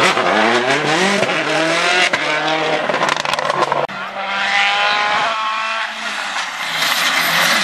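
Rally car engine revving hard on a stage, its pitch climbing, then a brief sharp break about four seconds in before it climbs again.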